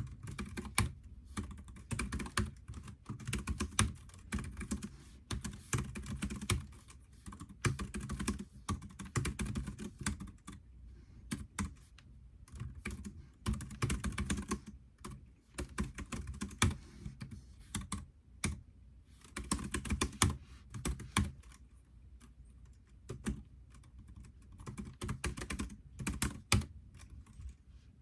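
Typing on a computer keyboard: key clicks in quick irregular runs with short pauses between them.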